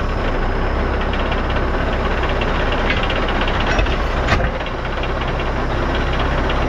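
Farm tractor engine idling steadily, with one sharp knock about four seconds in.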